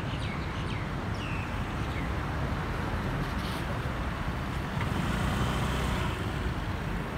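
Steady distant rumble of an Airbus A330-243F freighter's Rolls-Royce Trent 700 jet engines passing overhead, swelling a little about five seconds in. A bird gives a few short falling chirps in the first two seconds.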